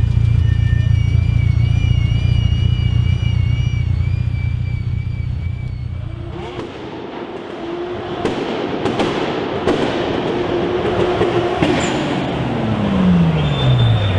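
Performance car engine sounds. First a steady low engine rumble with high, wavering whistling tones over it. Then a rougher, noisier stretch with several sharp pops, and near the end the engine's pitch falls away.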